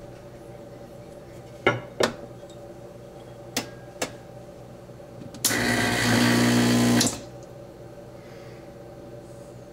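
La Pavoni Cellini espresso machine's vibration pump buzzes with a hiss of water for about a second and a half near the middle, then stops. Before that come a few sharp clicks, two of them as a small glass is set down under the portafilter. A low steady hum lies underneath.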